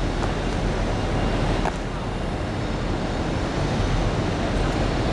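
Steady outdoor background noise, a low rumble with an even hiss, with a couple of faint short taps about a quarter of a second and a second and a half in.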